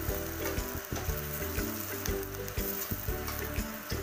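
Onions and garlic sizzling as they fry in oil in an aluminium kadhai, turned with a steel slotted spoon. Background music with a steady beat plays under the sizzle.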